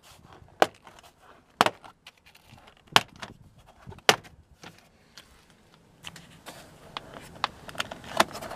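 Plastic door-sill trim on a Toyota FJ Cruiser being pulled up by hand, its push-in retaining clips popping loose with sharp snaps about once a second. Near the end comes a quicker run of small clicks and rattling plastic.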